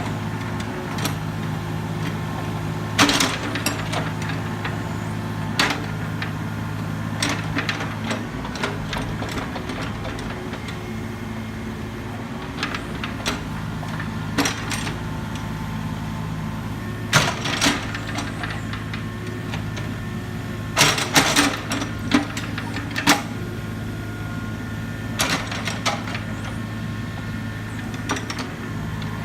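Excavator's engine running steadily, with irregular sharp metallic clanks and knocks from the machine at work, several coming in quick clusters.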